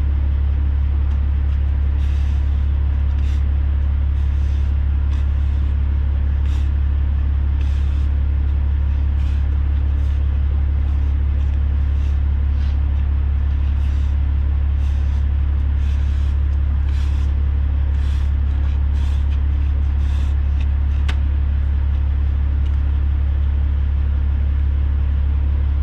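Diesel engine idling steadily: a deep, constant hum, with faint light clicks about once a second.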